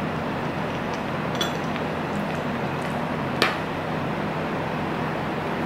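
A metal spoon clinks against a ceramic bowl twice: a light tap about one and a half seconds in and a sharper, louder clink about three and a half seconds in. A steady background hum runs underneath.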